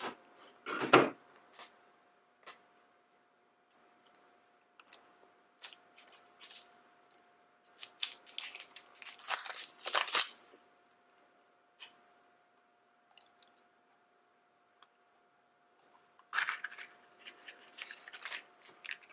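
Scissors cutting into a plastic blind bag, then the crinkly wrapper being pulled open and handled in scattered short rustles and snips, over a faint steady hum.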